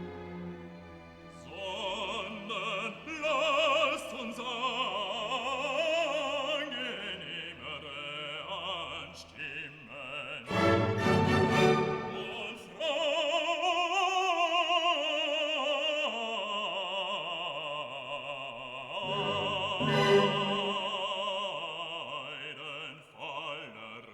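Operatic classical music: a singer holding long notes with a wide vibrato, with a louder, fuller passage about halfway through.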